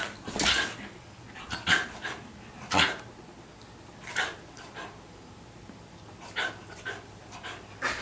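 Jack Russell terrier giving short, sharp play barks at a toy, about ten of them spaced irregularly, the loudest in the first three seconds.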